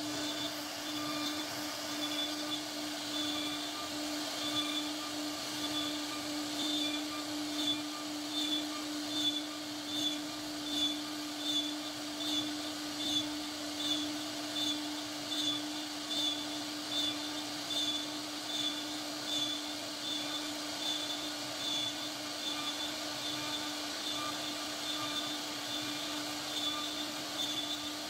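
CNC router spindle carving an ornamental pattern into a wooden panel: a steady motor whine with a rhythmic pulsing, a little under two pulses a second, as the bit cuts through the wood.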